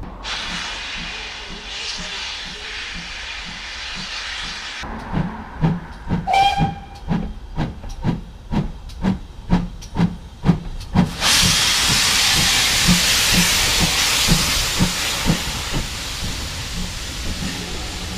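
Steam locomotive working up the line towards the listener. A steady hiss gives way, about five seconds in, to sharp exhaust chuffs at about two to three a second, with a brief whistle note among them. Near the middle the chuffs turn into a loud continuous rush of steam as the engine passes directly below, its beats still faintly audible underneath.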